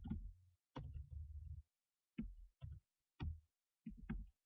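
Computer keyboard keys being pressed: about six sharp clicks, each followed by a short, dull low thump.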